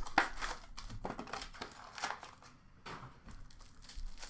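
Trading card packaging being torn open and crinkled by hand, in irregular crackles with a sharp rip just after the start.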